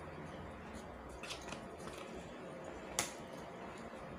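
Wooden chopsticks picking at food in a paper takeaway box: a few faint clicks and scrapes, then one sharp click about three seconds in.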